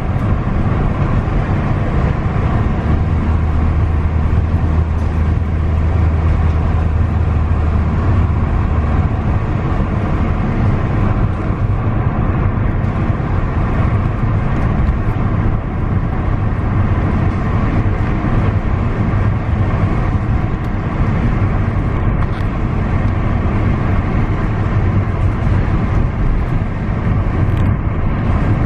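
Steady low rumble of a car driving, heard from inside the cabin: engine and tyre noise on a damp paved road. A deeper hum swells about three seconds in and fades out several seconds later.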